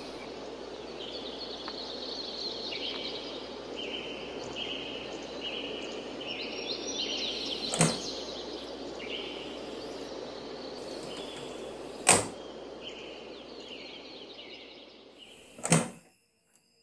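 Rural outdoor ambience of high, repeated chirping calls over a steady hiss, broken by three sharp clicks. The last and loudest click comes near the end, as the van's driver door is unlatched, and the sound then cuts off.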